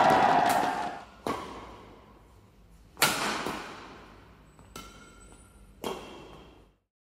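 Sound effects: a swelling whoosh that fades out about a second in, then four sharp hits spaced a second or two apart, each ringing out in a long echoing tail. The hit about three seconds in is the loudest.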